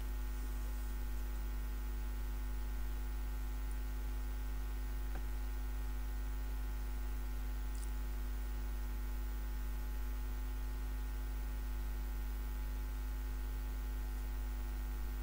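Steady electrical mains hum with a stack of even overtones, unchanging throughout, with a faint tick or two.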